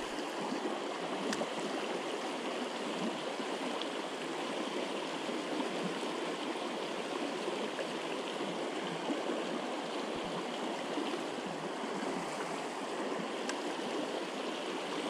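River water rushing over rocks in a shallow riffle, a steady wash of running water.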